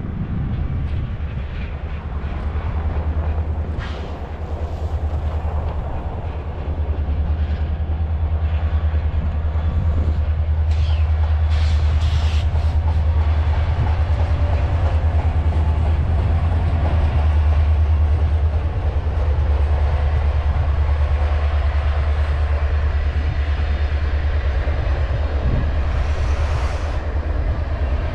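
Canadian Pacific Holiday Train passing close by, its diesel locomotive and then boxcars rolling over the rails with a loud, steady low rumble that swells about seven seconds in. A few brief higher-pitched sounds come through around eleven to twelve seconds in and again near the end.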